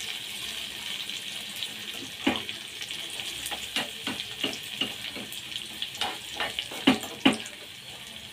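Oil sizzling steadily in a small iron tempering ladle as crushed garlic and dried red chillies fry, while a steel spoon stirs them with repeated clinks and scrapes against the pan. A few sharper knocks come in the second half.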